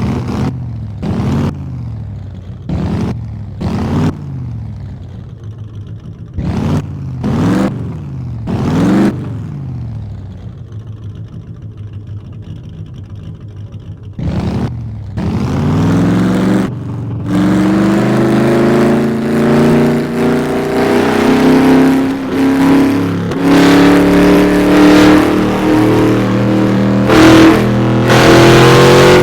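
Car engine revving: a series of about seven short throttle blips, each rising and falling back, then settling to idle, before the revs climb and are held high and wavering, growing louder toward the end.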